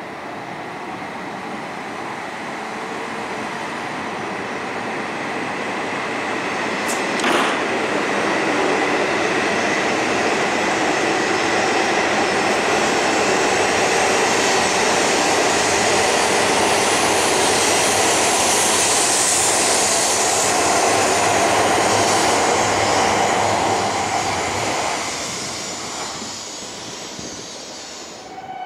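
E5 series Shinkansen train pulling out past a platform. Its running noise swells as the cars go by, with a steady high tone through it, then fades away over the last few seconds as the train leaves. A single sharp click sounds about seven seconds in.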